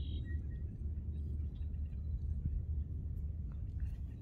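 Low, uneven rumble of wind buffeting the microphone outdoors, with no other clear sound over it.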